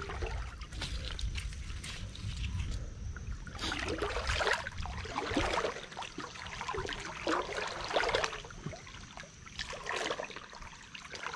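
Irregular rustling and crackling of wet forest vegetation being pushed through and handled, coming in uneven bursts.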